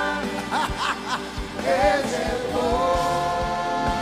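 Live gospel worship music: a band with a steady drum beat and singing voices, moving into long held notes in the second half.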